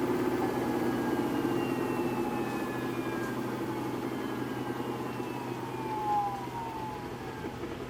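Samsung EcoBubble washing machine winding down from a spin: the motor whine slides slowly down in pitch while the drum's rumble gradually fades.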